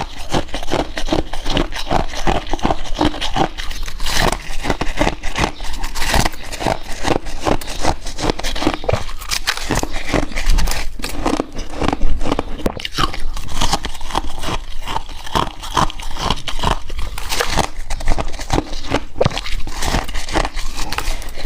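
A person biting and chewing white ice close to the microphone, a dense run of crisp, irregular crunches that goes on without pause.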